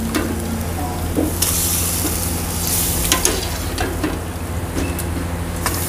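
Mutton pieces with potatoes sizzling in oil in a kadai while a metal ladle stirs them, scraping and clicking against the pan a few times, over a steady low hum.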